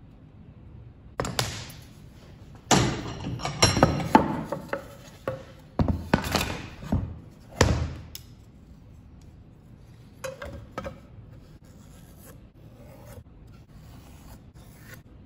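Wooden door rails and a steel combination square being slid, shifted and set down on a wooden workbench: several bursts of rubbing and scraping with knocks, loudest in the first half, then a few fainter scrapes about ten seconds in.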